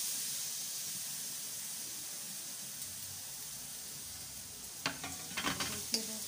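Chopped ridge-gourd peel sizzling in hot oil in a kadai just after going in: a steady frying hiss that slowly eases. Near the end come a few knocks and scrapes as a spatula starts stirring against the pan.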